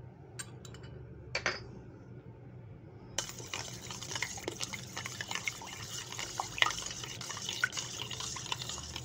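Thin egg-and-milk mixture being stirred in a bowl: wet sloshing with small clinks of the utensil against the bowl, starting suddenly about three seconds in after a few faint clicks.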